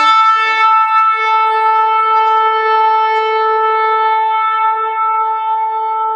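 A shofar blown in one long, steady blast that slowly weakens near the end.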